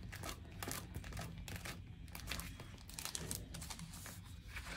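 Faint rustling and crinkling of sticker sheets being handled, with scattered light taps.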